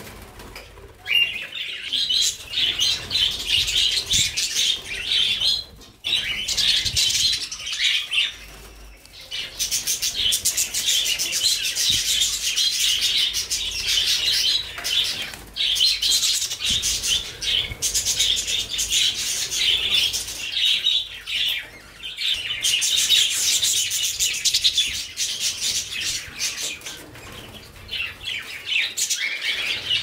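A flock of budgerigars chattering and chirping continuously, a dense mix of rapid high warbles and clicks with a few short lulls.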